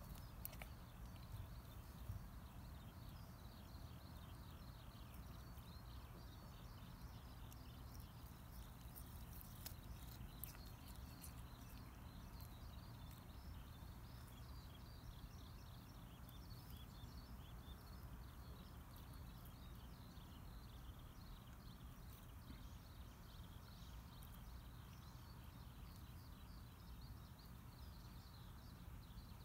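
Near silence: faint, dense, high chirping continues throughout over a low steady rumble, with a few soft clicks about ten seconds in.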